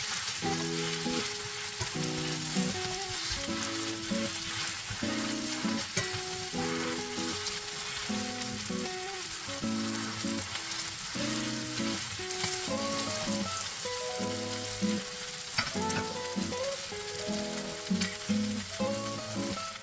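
Batter pancake sizzling as it fries in oil in a pan, with background music playing over it.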